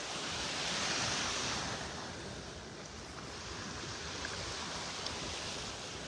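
Small, gentle surf washing up the sand at the water's edge, one wash swelling up about a second in and then easing off.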